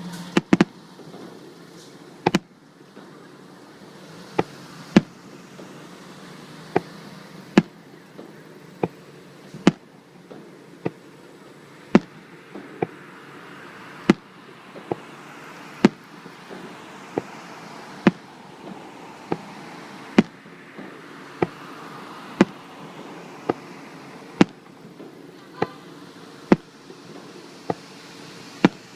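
Aerial fireworks shells bursting in a steady run of sharp bangs, about one a second.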